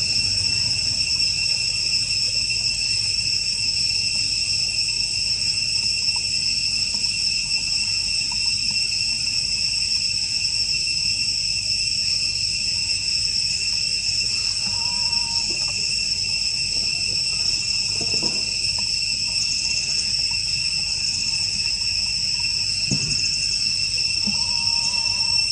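Steady, high-pitched chorus of forest insects, an unbroken shrill drone with a few faint short calls and light knocks behind it.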